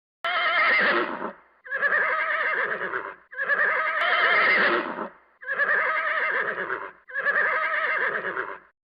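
Horse whinnying five times in a row. Each call is a quavering whinny of a second and a half or so, with short gaps between them.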